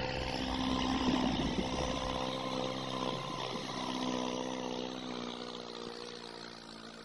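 John Deere 5036D tractor's three-cylinder diesel engine running steadily under load, hauling a trolley fully loaded with soil, growing fainter as it moves away.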